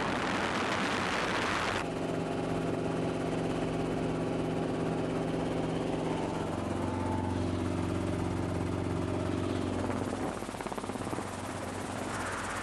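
Light helicopter in flight, heard from the cabin. A rushing noise for about the first two seconds gives way to a steady drone of engine and rotor with several tones, which turns rougher and noisier near the end with a brief flutter.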